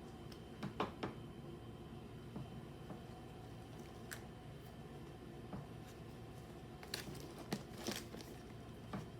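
Pokémon Elite Trainer Box and its card packaging being handled: a few soft crinkles and taps, two close together about a second in and a cluster about seven to nine seconds in, over a steady low hiss.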